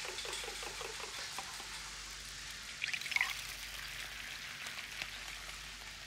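Food sizzling in a frying pan, a faint steady hiss, with a brief clatter of kitchenware about three seconds in.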